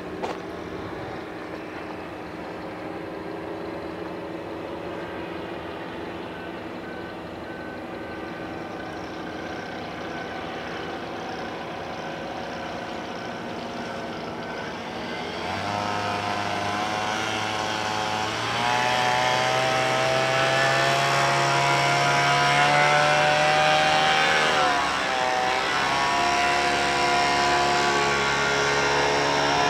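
Powered paraglider (paramotor) engine and propeller droning overhead. The drone is steady and fairly faint at first, grows louder and rises in pitch about halfway through as the machine comes close, and briefly dips and bends in pitch near the end as it passes.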